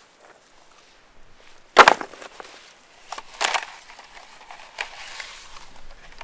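Wood cracking and knocking: one loud, sharp crack about two seconds in, a second, slightly longer crack about a second and a half later, then a few lighter knocks.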